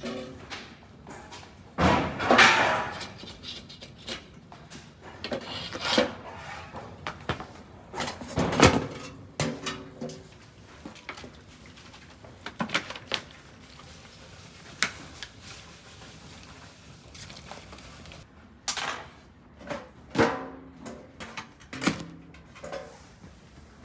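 Irregular scraping, knocking and clanking of a baker's long metal hooks and scraper working inside a clay tandoor, lifting baked flatbreads off the oven walls, with a few louder metallic clanks that ring briefly.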